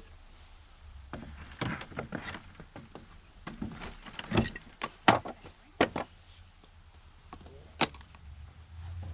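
Irregular knocks and clacks of a wooden plank door and its hardware being handled and fitted into its frame, the sharpest knock about five seconds in.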